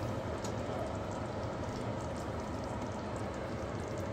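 Creamy chicken curry sauce simmering in a non-stick frying pan: a steady low bubbling with faint small pops.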